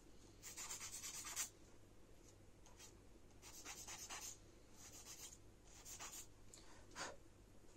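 Emery-board nail file rasping across fingernails: faint, in a few short spells of quick strokes, with a short tick near the end.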